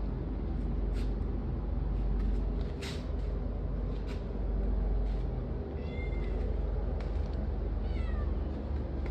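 A tabby cat mewing twice, short high-pitched calls about two-thirds of the way through and near the end, the second sliding down in pitch, over a steady low rumble.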